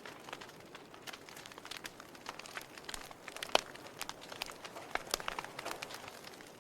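Wood fire burning in a fireplace, crackling with irregular sharp pops over a soft hiss. The loudest pop comes a little past halfway.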